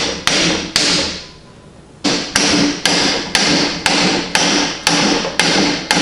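A hammer strikes the end of a hardwood hatchet handle, driving the hatchet head down onto it to seat it. Sharp blows come about two a second, with a pause of about a second near the start.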